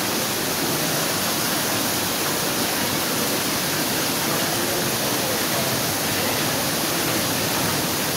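Hot-spring water pouring and showering from the roof and walls of a rock tunnel: a steady, unbroken rush of falling water.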